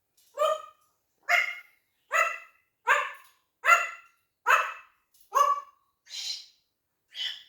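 African grey parrot imitating a dog's bark: a series of nine short barks, about one every 0.8 seconds, the last two higher and thinner.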